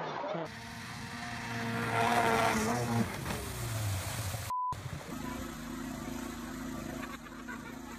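A motor vehicle engine revving, rising in pitch about two seconds in. Then a short beep. From about five seconds in, the small petrol engine of a walk-behind concrete power trowel runs steadily.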